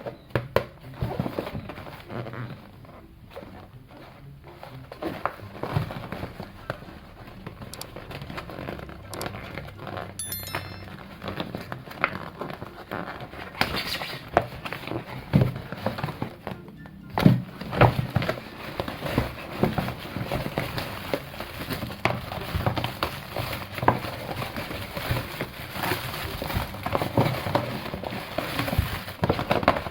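Plastic packaging crinkling and rustling, with many small clicks and taps as toy figures are handled and unboxed.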